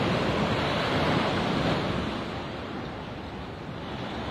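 Surf breaking on a sandy beach: a steady rushing wash of waves that eases off after about two seconds.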